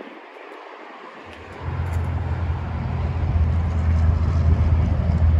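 Low rumble of traffic passing on a nearby highway, swelling from about a second and a half in and growing steadily louder.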